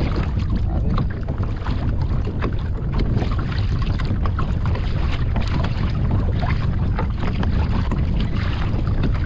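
Wind buffeting the microphone in a steady low rumble, with small waves slapping and splashing irregularly against a fishing kayak's plastic hull on choppy sea.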